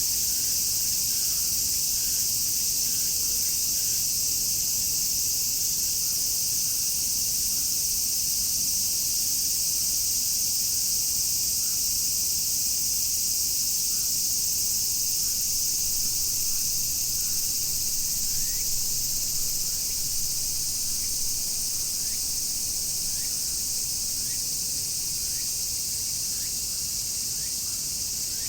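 A chorus of many cicadas shrilling together as one steady, high-pitched drone that never breaks.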